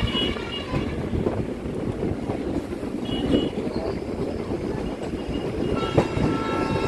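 Steady rumble and clatter of a moving passenger train's coaches on the track, heard from on board.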